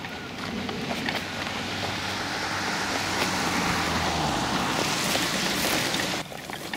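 Wind buffeting the camera's microphone, a steady rushing noise that swells and then cuts off sharply about six seconds in.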